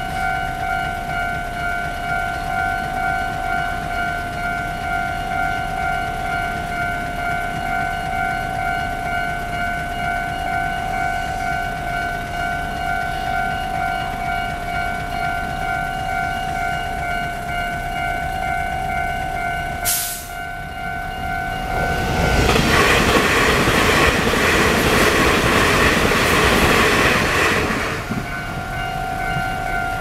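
Level-crossing warning bell ringing steadily. Two-thirds of the way through there is a sharp crack, and then a TRA TEMU2000 Puyuma Express electric tilting train rushes through the crossing for about six seconds. Its loud wheel and rail noise drowns out the bell, which is heard again once the train has gone.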